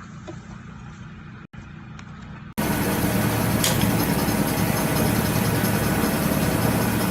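A quiet engine hum, then an abrupt cut about two and a half seconds in to a much louder engine running steadily.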